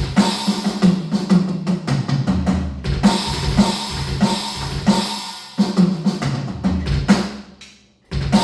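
Electronic drum kit played through its sound module on a user-built preset set up to sound like an acoustic kit: a fast groove of bass drum, snare and cymbal crashes, including the kit's China crash sound. The playing stops about seven seconds in, and one last crash near the end rings out slowly.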